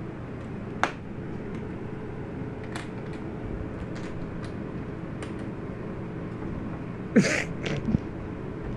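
Scattered sharp clicks and taps of small metal latches on a puzzle board being handled by a macaque, over a steady low hum. Near the end, a louder clatter and scuffle as the monkey moves off across the table.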